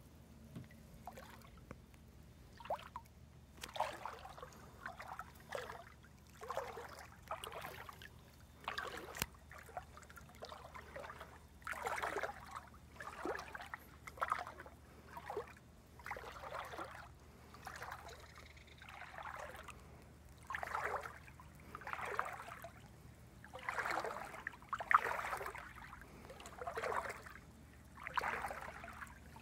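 Footsteps wading through shallow water: a short splash with each step, about one a second.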